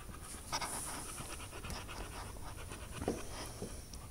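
A Boxer dog panting rapidly and rhythmically, mouth open with her tongue hanging out.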